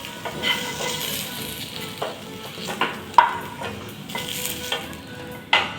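Vegetables sizzling in a little oil in a frying pan as they are stirred, with a few sharp knocks of the utensil against the pan, the loudest about three seconds in.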